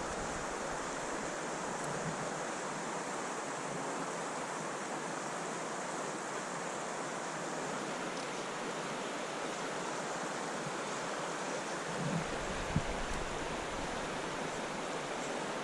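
Steady rush of flowing creek water. About twelve seconds in, a gust of wind buffets the microphone, with a short knock just after.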